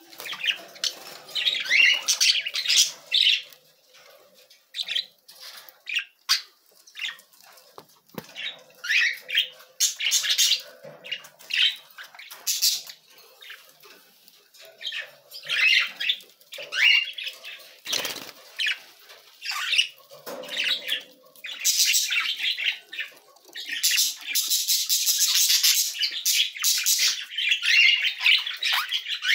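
Budgerigars chirping and chattering in short, high bursts with pauses between, the chatter growing dense and almost continuous near the end.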